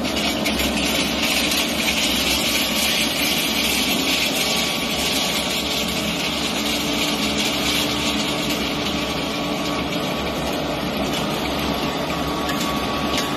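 Small electric flat-die feed pellet mill running under load: a steady mechanical drone and grinding hiss as its rollers press dried chopped forage through the die into pellets.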